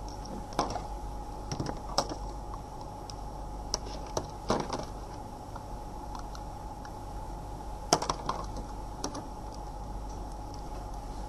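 Plastic connectors of an FVDI2018 OBD diagnostic interface clicking and tapping as a TAG coil is unplugged and the black TAG coil is plugged into the box's port: scattered sharp clicks, loudest about two seconds in and about eight seconds in. A steady hum runs underneath.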